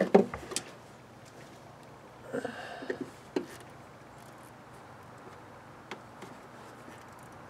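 Quiet handling of a rubber drain piece being worked loose from the car body's sheet-metal channel: a short muffled rubbing sound a couple of seconds in and a few light clicks.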